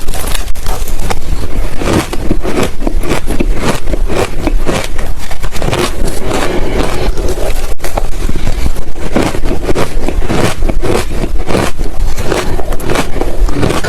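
Ice being bitten and chewed close to the microphone: a dense, loud run of crisp crunches, one after another.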